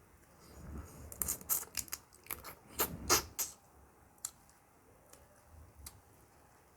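A person eating close to the microphone: chewing and crunching, with a quick run of sharp crackling clicks from about one to three and a half seconds in, then a few single clicks.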